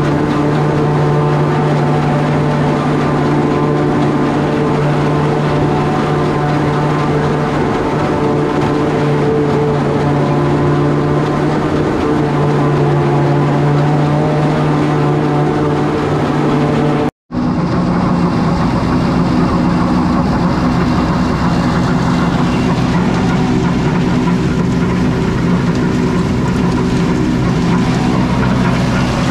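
Pull-type New Holland forage harvester chopping sorghum-sudangrass, its cutterhead and blower running steadily together with the tractor pulling it. A sudden cut comes about two-thirds of the way in. After it, a different steady machine sound runs as the chopped forage is unloaded from the wagon into a silo blower.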